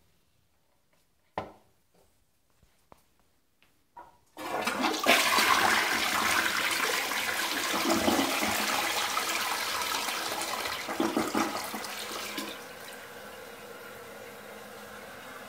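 Elongated toilet with a 1.6-gallon-per-flush Peerless Pottery tank flushing. After a few faint knocks, the flush starts suddenly as a loud rush of water about four seconds in and runs for about eight seconds, then drops to a quieter steady hiss of water.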